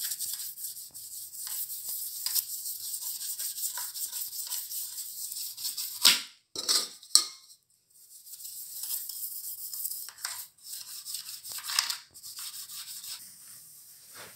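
Toothbrush bristles scrubbing the plastic housing of an old Preethi mixer grinder, a rapid scratchy brushing that works grime loosened by a white vinegar and baking soda soak. A few sharp clicks come about six and seven seconds in, with a brief pause just after.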